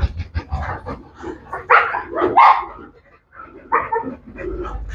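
Pit bull barking in a run of short barks, the loudest pair about two seconds in.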